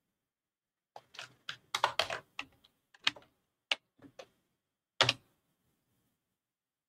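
Computer keyboard keystrokes: an irregular run of key clicks starting about a second in, with a last loud keystroke near the five-second mark.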